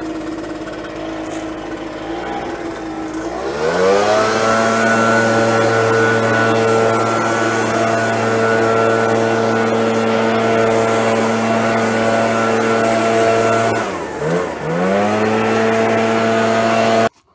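Gas leaf blower engine running. It runs at part throttle for the first few seconds, revs up to a steady full-throttle pitch, dips briefly and revs back up near the end, then cuts off abruptly.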